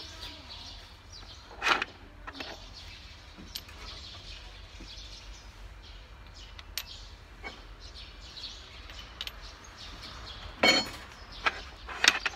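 Sporadic metallic clinks and knocks of hand tools and parts on the open cylinder head of a Nissan GE13 diesel engine: one sharp knock a little under two seconds in, scattered light ticks, and two louder clanks near the end. Birds chirp faintly behind.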